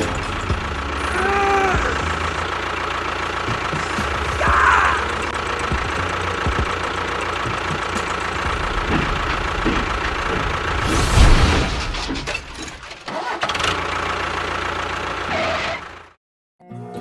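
A small engine or motor running steadily, with a louder swell about eleven seconds in. It cuts off abruptly a second before the end.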